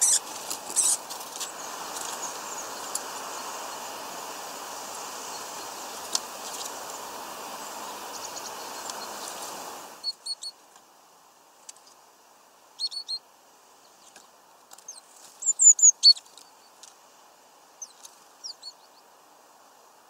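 Short, high chirps and call notes of small songbirds in scattered clusters through the second half; the loudest is a quick run of notes about two-thirds of the way in. Under the first half runs a steady background hiss, with a few sharp clicks at the start, which stops abruptly about halfway.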